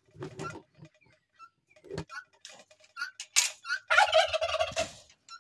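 Domestic turkey gobbling, one loud call lasting about a second, about four seconds in, with shorter scattered sounds before it.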